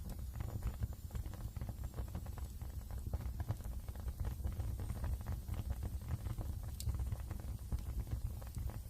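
Wood fire burning in a fireplace: a steady low rumble with frequent small crackles and one sharp pop about seven seconds in.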